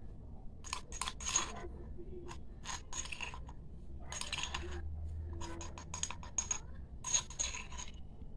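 A small steel spoon clinking and scraping against a steel bowl and a ceramic jar while flour is scooped into the bowl: a run of about a dozen short taps and scrapes, some with a light metallic ring.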